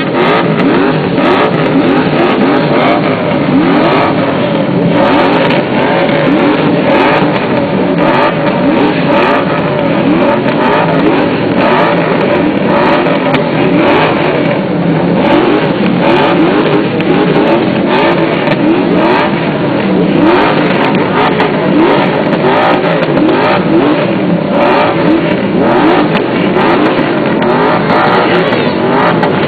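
A crowd of TVR sports cars revving their engines all at once: a loud, unbroken din of many overlapping revs rising and falling, with frequent sharp exhaust crackles and pops.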